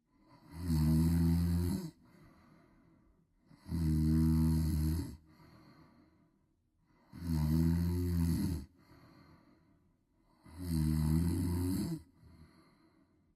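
Loud, regular snoring: four long snores about three and a half seconds apart, each followed by a faint breath.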